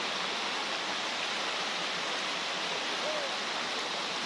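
Steady rushing of a flowing mountain stream.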